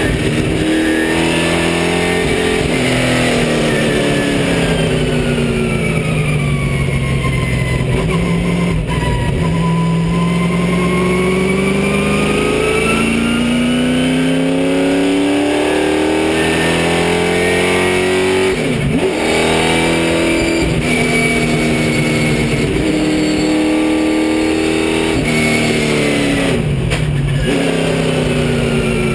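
Race car engine heard inside the cockpit, loud and steady, its pitch sinking and climbing as the car slows for corners and accelerates away, with brief breaks at gear changes about two-thirds of the way through and near the end.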